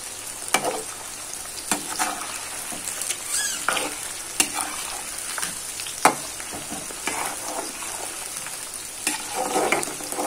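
Battered chicken pakodi deep-frying in hot oil with a steady sizzle, while a long metal spoon stirs the pieces and knocks or scrapes against the pan several times.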